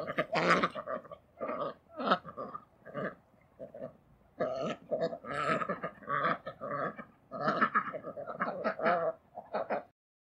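Domestic ducks quacking and chattering in a quick, irregular run of short calls, several a second, which cut off near the end.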